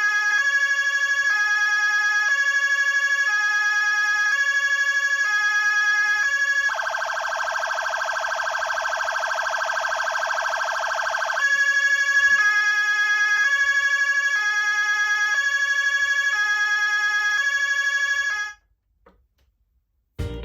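Whelen WSSC30 electronic siren speaker sounding a two-pitch pattern that switches pitch about every 0.7 seconds over a steady high tone. For about five seconds in the middle it changes to a buzzy, horn-like tone, then goes back to the alternating pattern and cuts off sharply shortly before the end.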